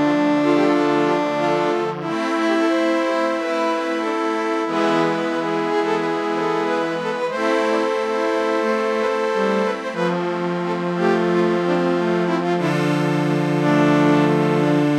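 Slow instrumental film-score music led by an accordion: sustained chords with a repeating melody above them, the lower notes changing about every two and a half seconds.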